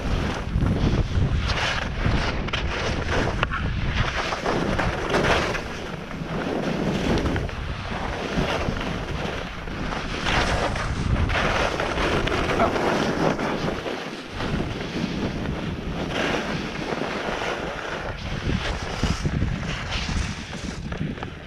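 Wind rushing over the camera microphone, mixed with the hiss and scrape of skis turning on firm, tracked snow, swelling and easing with each turn.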